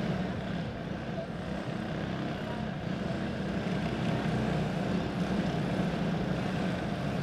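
Several quarter-midget flat karts with single-cylinder four-stroke OHV clone engines running at low speed under caution, a steady engine drone.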